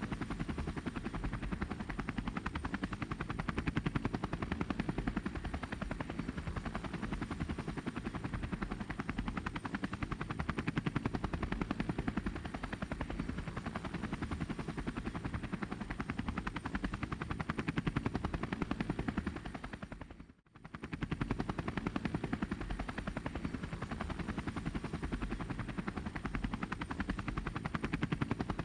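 Small quadcopter drone's propellers buzzing steadily with a fast pulsing flutter, dropping out briefly about twenty seconds in.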